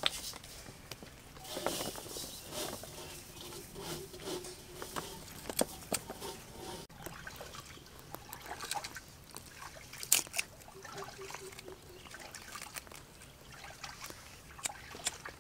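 Irregular clicks and knocks of thin sticks being fed into a clay charcoal stove, with the small wood fire just lit inside crackling.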